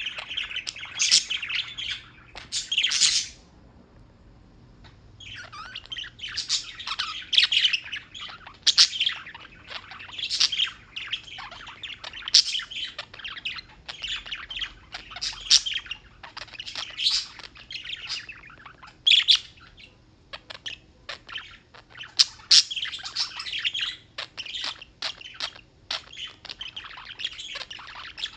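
Several small birds chirping continuously in quick, overlapping chirps. The chirping breaks off for about a second and a half a few seconds in, then resumes.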